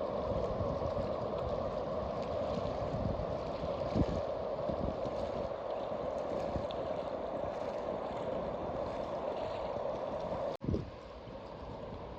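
Steady rush of fast-moving river water as the incoming tidal bore churns the river, with gurgling. The sound cuts off abruptly near the end and comes back quieter.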